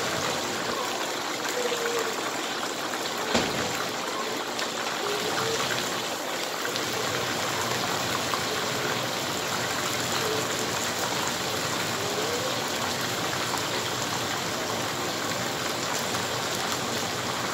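Chicken pieces sizzling in hot oil in a deep frying pan over a gas flame: a steady, even sizzle, with a single sharp click about three seconds in.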